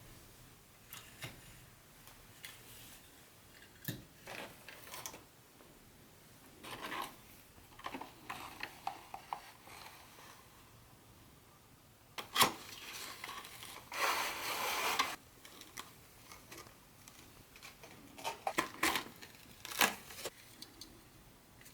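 Handling sounds from unboxing a boxed HO-scale model train set: scattered light clicks and taps from pieces and cardboard being handled. There is a sharp click about 12 seconds in, then a rustle of packaging lasting about a second.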